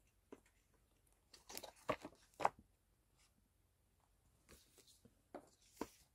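Stiff paper photo cards being handled and flipped through: a few short rustles and slides of card, loudest about two seconds in, with a couple more near the end.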